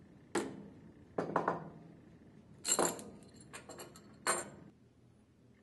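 A series of sharp metal clinks with short ringing: a steel spanner wrench working the shaft lock nut and lock washer of a Viking internal gear pump, with a tool set down on the bench.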